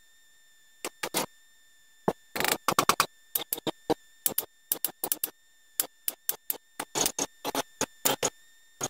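Irregular short metal clicks and knocks, several a second in clusters, from the headset parts on a mountain-bike suspension fork's steerer tube being turned and handled by hand.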